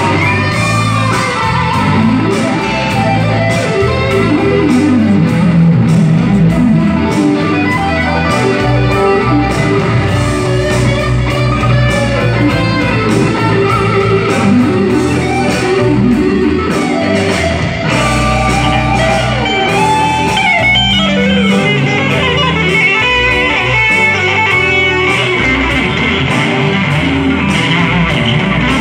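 Electric guitar and electric bass playing an instrumental jam, the guitar taking lead lines with sliding notes over the bass, moving higher in pitch in the last third.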